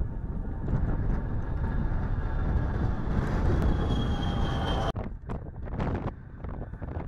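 Fairchild Republic A-10 Thunderbolt II's twin TF34 turbofan engines at takeoff power as the jet rolls and lifts off: a loud, steady rush with a high engine whine, cut off abruptly about five seconds in. After the cut, the quieter engine noise of the A-10 climbing away, with wind gusting on the microphone.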